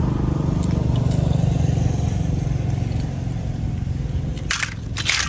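A low, steady rumble that slowly fades, then two short, sharp noisy sounds near the end.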